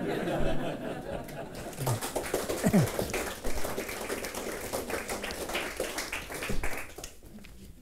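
Audience applauding after a poem reading, mixed with a few voices, the clapping dying away about seven seconds in.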